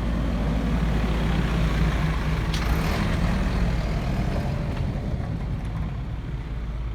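Mercedes-Benz Atego refrigerated truck running, a steady engine hum, with a brief hiss about two and a half seconds in.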